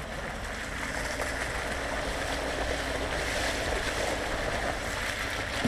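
Pickup truck driving along a wet, muddy dirt road: a steady rush of tyres through mud and puddle water, with a low hum underneath, heard from a camera mounted low on the truck's side.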